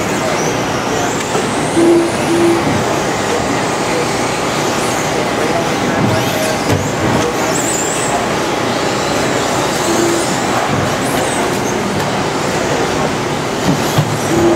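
Several electric RC race trucks running laps on an indoor off-road track: high motor and gear whines rise and fall with throttle over a dense rush of tyre and track noise. Background voices run under it, and a few short beeps come about two seconds in, near ten seconds and at the end.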